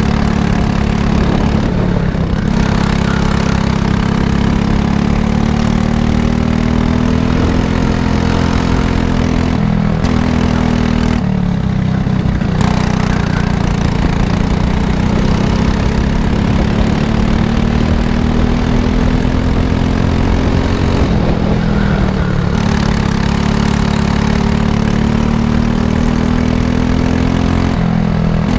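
Go-kart engine running hard through a lap, its pitch climbing slowly along the straights and dropping away briefly a few times as the throttle comes off for the corners.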